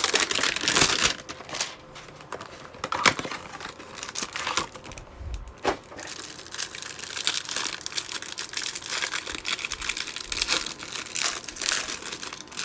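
A trading-card hanger box being torn open and its packaging crinkled and crumpled, with a few sharp snaps and rips among continuous crackling.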